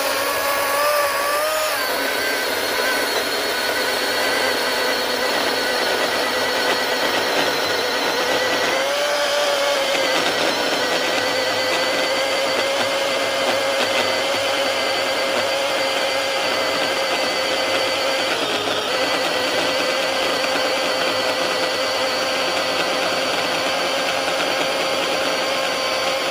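Milwaukee Fuel cordless electric chainsaw running with a steady high whine, its pitch dipping briefly about a second in and again around nine seconds in.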